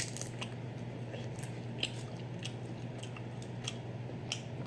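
Mouth sounds of someone eating boiled crawfish and shrimp: wet chewing and lip-smacking, with irregular sharp smacks two or three times a second, over a steady low hum.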